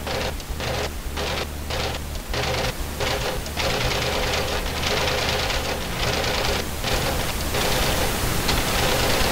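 Soundtrack of pulsing noise: bursts of hiss about two or three a second for the first few seconds, then running together into a steady hiss, all over a low hum.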